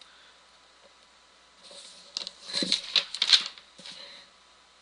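A burst of clicking and rustling that starts about one and a half seconds in and dies away about three seconds later.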